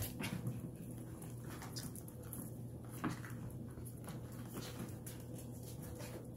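Pomeranian puppies play-fighting with a bigger dog: faint scuffling and soft taps of paws, over a steady low hum.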